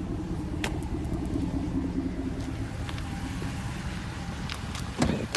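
Ram pickup's Hemi V8 idling steadily through a Magnaflow 12288 muffler and 5-inch tips, a low rumble. A single clunk comes near the end.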